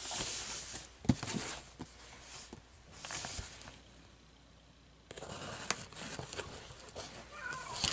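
Scissors cutting and scraping along packing tape on a cardboard shipping box, with a few sharp clicks and a quiet pause about four seconds in before the cutting resumes.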